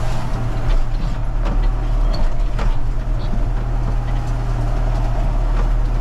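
Valtra tractor's diesel engine running steadily under load, heard from inside the cab, with a few short knocks and rattles.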